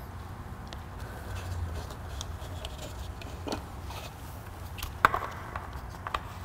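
Motor oil pouring from a quart bottle into a screw-in funnel, then knocks and clicks as the funnel is lifted out and handled, the sharpest knock about five seconds in.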